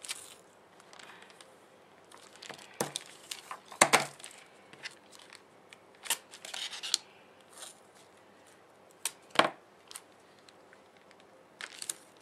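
Metallic foil washi tape being handled and pressed onto a paper planner page: scattered crinkling and tearing noises with sharp clicks, the loudest about four seconds and again about nine seconds in.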